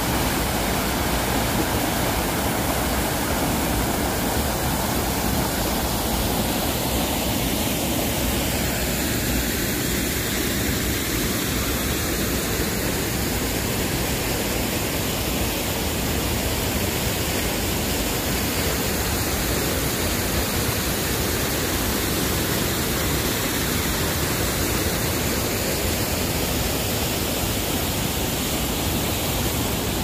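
Waterfall cascading into a rocky forest stream: a steady, loud, unbroken rush of falling and flowing water.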